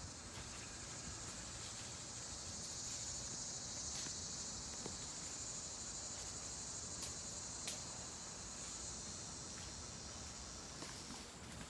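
Steady high-pitched drone of insects, swelling a little in the middle, with a few faint clicks scattered through it.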